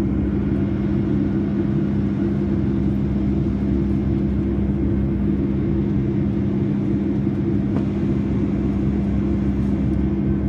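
Steady in-flight cabin noise of a Boeing 757-200 airliner, heard from a window seat beside the wing and engine. A low, even engine drone and rushing air run throughout, with a steady hum in it.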